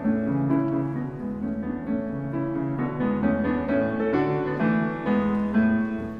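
Grand piano playing the orchestral part of a classical concerto alone, a quick passage of runs and chords, while the two flutes rest.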